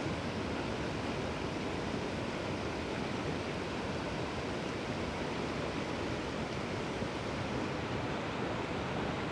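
Steady rushing of river rapids, an even white-water noise that cuts off suddenly at the end.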